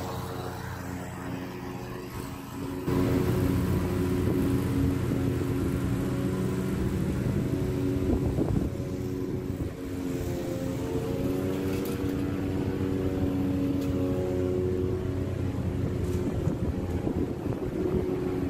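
Toro TimeCutter zero-turn mower's 22.5-horsepower engine running steadily as the mower drives and turns across the lawn. It gets louder about three seconds in, and its pitch wavers slightly midway.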